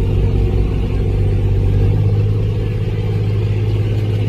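A steady, deep rumbling drone: several low tones held at an even level, with nothing above them, in a sound bed laid under the footage.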